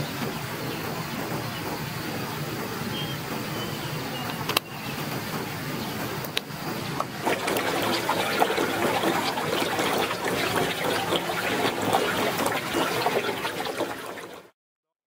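Forest stream water trickling steadily, growing louder about halfway through, with a few sharp clicks between about four and seven seconds in; the sound cuts off abruptly just before the end.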